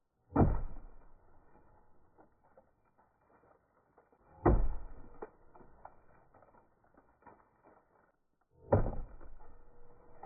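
Three heavy thuds about four seconds apart, each dying away over about a second, with faint crackling between them.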